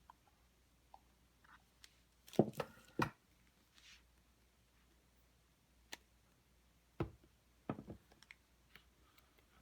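Apple Watch box and packaging being handled by hand: scattered light clicks and taps, with a cluster of louder knocks about two and a half seconds in and another group around seven to eight seconds.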